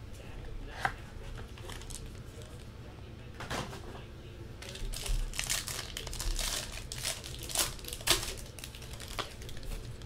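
Plastic wrapper of a football trading card pack crinkling and tearing as it is handled and opened. Sharp clicks and taps come between the crinkles, and the crinkling is thickest in the second half.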